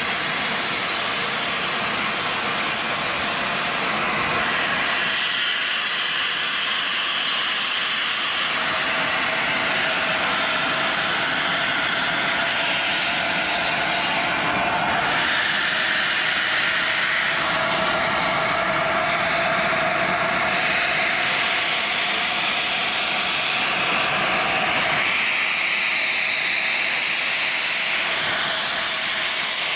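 Steam locomotive letting off steam in a steady, loud hiss, with no exhaust beats.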